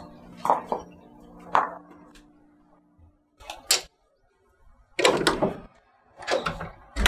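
Background music fading out over the first three seconds, then a few short knocks and scrapes as a hinged wooden lattice door is pushed open and handled, the loudest near the end.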